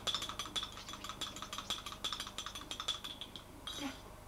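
Quick run of light, clicking clinks, several a second, stopping about three and a half seconds in.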